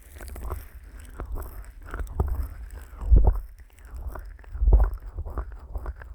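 Fingers rubbing and massaging the silicone ear of a 3Dio binaural microphone, slick with petroleum jelly: repeated close rubbing strokes with deep thuds where the pressure lands, twice hardest.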